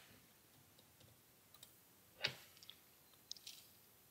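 A few faint, sharp clicks of a computer mouse and keyboard against near silence, the clearest about two seconds in and a small cluster near the end.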